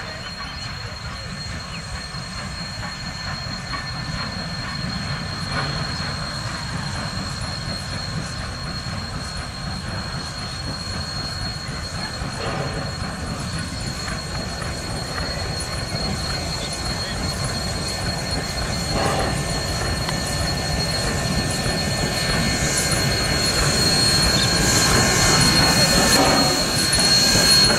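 Queensland Rail C17-class steam locomotive C17 974 with its train of carriages approaching under steam and drawing alongside, its rumble and rail clatter growing steadily louder. A thin, steady high whine runs underneath and grows brighter as the train nears.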